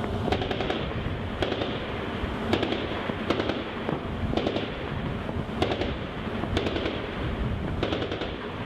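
Gunfire at a distance: sharp single reports at irregular spacing, roughly one a second, over a steady background rumble of wind and machinery.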